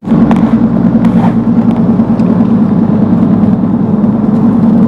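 Steady engine and road noise inside a moving car's cabin, with a low, even hum.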